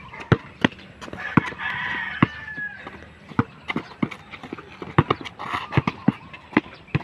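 A basketball dribbled on a concrete road, sharp bounces at an uneven pace of about two a second. A rooster crows in the background from about a second in.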